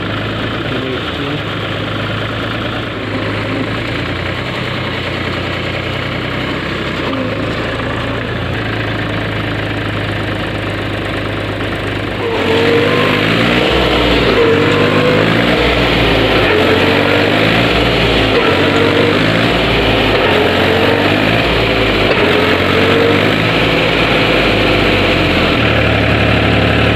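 Farm tractor's diesel engine running at a steady idle. About halfway through it gets louder, its pitch wavering up and down as it is revved.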